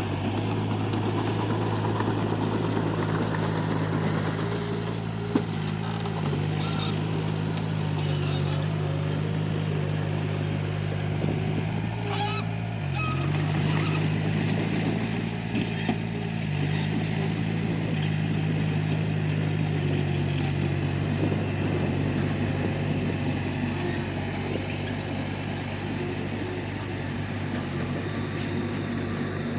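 Komatsu D31P bulldozer's diesel engine running steadily under work, dipping briefly in pitch about halfway through, with a sharp click about 5 seconds in.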